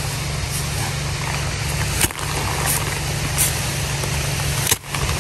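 Rice sheaves beaten by hand against a wooden threshing board, several separate thumps over the steady drone of a motorised rice thresher's engine running.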